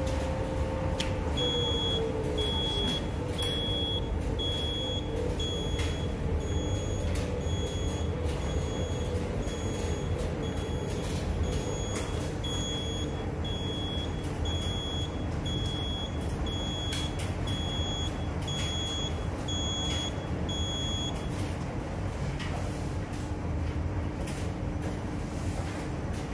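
Coin-operated laundromat tumble dryer beeping, short identical high beeps about once a second, stopping about three-quarters of the way through. Its drum motor hum falls in pitch near the start as the drum winds down, over a steady low hum of the laundromat machines.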